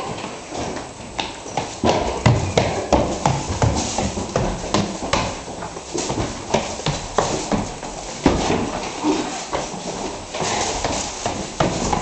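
Footsteps climbing wooden stairs: a quick, steady run of footfalls on the treads.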